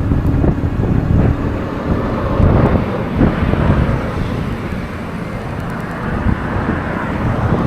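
Wind buffeting the microphone while riding an electric bike along a road, with road and traffic noise underneath.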